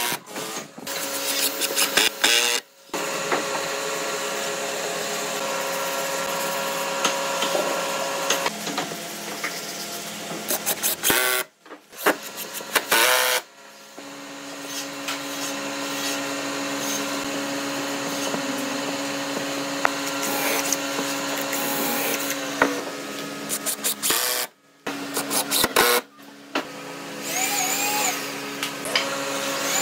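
Cordless impact driver driving screws into pine frame joints, with rapid clicking near the start. A steady mechanical whine runs through most of the rest, broken off suddenly several times.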